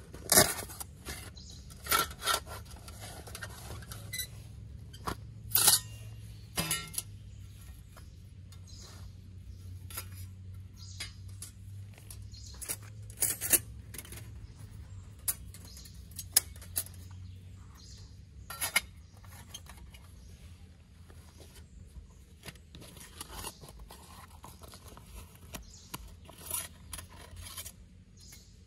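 A folding sheet-metal camp wood stove being unpacked and assembled by hand: rustling of its pouch and scattered light metallic clicks, clinks and scrapes as the panels are fitted together on the base plate. The clicks are busiest in the first several seconds.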